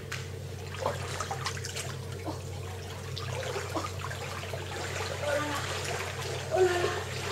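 Pool water sloshing and splashing lightly as a corgi wades through it, with a steady low hum underneath.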